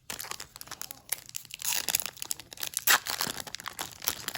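Trading-card pack wrapper crinkling and tearing as it is handled and ripped open, an irregular run of crackles with a few louder rips about two and three seconds in.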